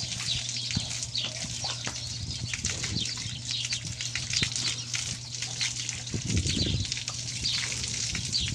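Water from a garden hose spraying and splattering on a horse's head and neck, a continuous hissing patter.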